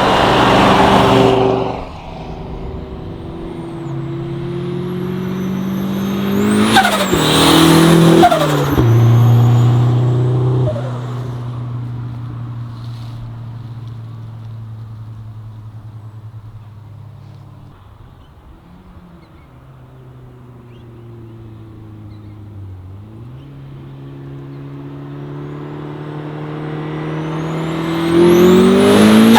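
Turbocharged 1.6-litre Mazda Miata engine revving hard and changing pitch while drifting, with a high squeal about seven seconds in. It fades away to its quietest about halfway through, then grows louder again toward the end.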